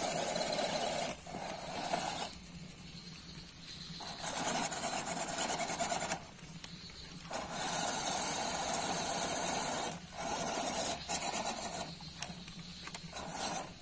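MN99S RC crawler's small electric motor and gears whining as it drives through shallow muddy water, with water splashing around the wheels. The throttle comes on and off in bursts of a second or two, with short pauses between.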